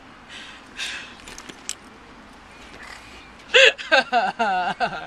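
Soft breathy sounds and a few faint clicks, then about three and a half seconds in a woman breaks into loud, high-pitched laughter.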